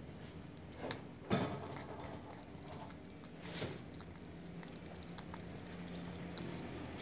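Tabby cat lapping water from a clear plastic bowl: a run of small ticks, about three a second, with a louder knock about a second in.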